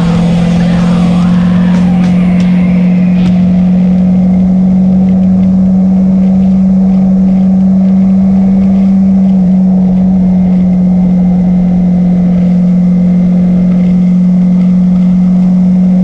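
Motorcycle engine held at a steady freeway cruise, one constant drone that does not change pitch, with wind rushing over the bike.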